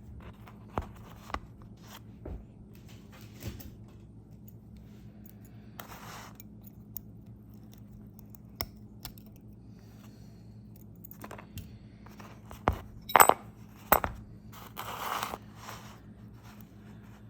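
Metal parts of a ratchet socket wrench being taken apart by hand: scattered light clicks and clinks, with a short scrape about six seconds in. The loudest part is a sharp cluster of metal clicks about thirteen seconds in, followed by another scrape.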